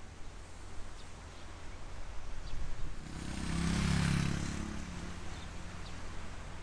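A motor vehicle passing by, its engine rising to a peak about four seconds in and then fading, over a steady low hum.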